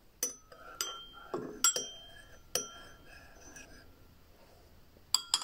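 Cutlery and glassware clinking at a dinner table: about eight sharp, ringing clinks at irregular intervals, with a lull of about a second past the middle.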